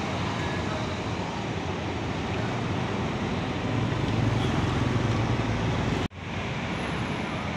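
Large intercity coach rolling slowly past at close range amid steady traffic noise, its low engine rumble swelling as it goes by. The sound drops out abruptly for a moment about six seconds in, then the traffic noise resumes.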